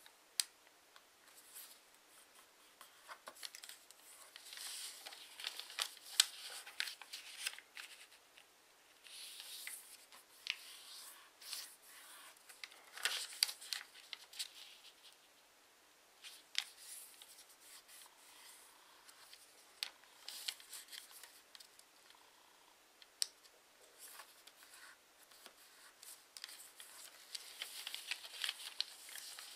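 A sheet of paper being folded and creased by hand: irregular rustling and crinkling with scattered sharp little snaps as folds are pressed flat.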